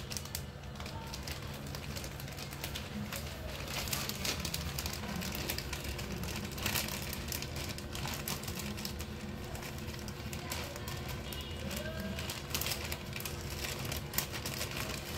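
Scissors snipping through a thin plastic diaper pack, the plastic crinkling and crackling irregularly as hands pull it open, over a steady low hum.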